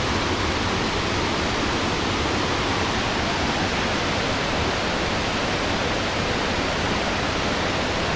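Zambezi River whitewater rushing over boulders at the Boiling Pot below Victoria Falls: a steady, loud rush of water with no break or change.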